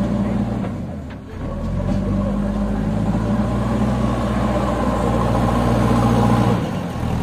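Diesel engine of a JCB 3DX backhoe loader running steadily as the machine drives over mud. The engine note eases off briefly about a second in and again near the end.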